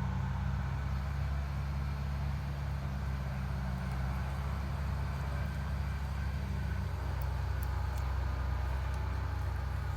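A steady low hum of a running engine, unchanging throughout.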